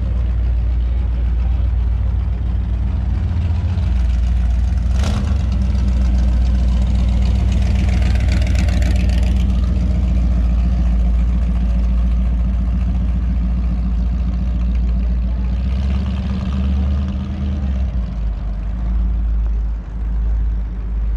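Car engine idling with a steady low rumble, and a brief sharp click about five seconds in.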